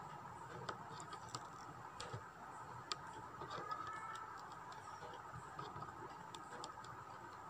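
Faint, irregular ticks and scratches of an aari hook needle punching through stretched cloth as beads and thread are stitched down, over a steady faint hum in the background.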